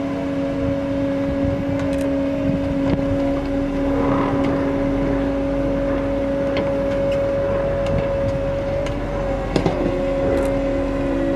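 Sennebogen 830 material handler with its boom-mounted suction pump running steadily: a constant machine hum at an unchanging pitch over a rumbling noise, with a few light clicks and a short knock about two-thirds of the way through.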